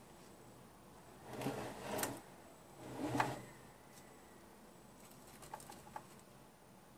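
Wires and the plastic chassis of an opened robot vacuum being handled: two short bursts of rustling and scraping, then a few light clicks near the end.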